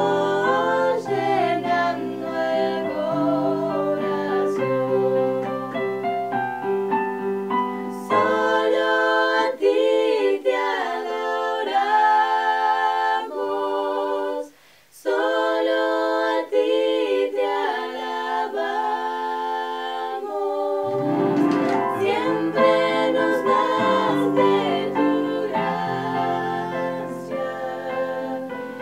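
Three women singing a song in harmony to electronic keyboard accompaniment. The keyboard's low notes drop away for about ten seconds in the middle, leaving the voices nearly alone, with a brief break about halfway through. The keyboard bass comes back near the last third.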